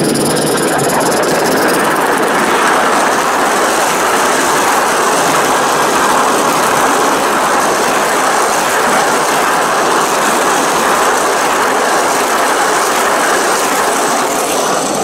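A large-scale model goods train running past close to the track: the Southern Pacific F4 2-10-2 locomotive goes by, then its goods wagons roll over the rails, making a loud, steady rushing noise.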